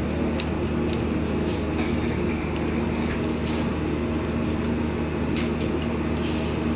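A steady low mechanical hum runs throughout, with a scattering of light metallic clicks from hand tools working on copper refrigerant pipe during flaring.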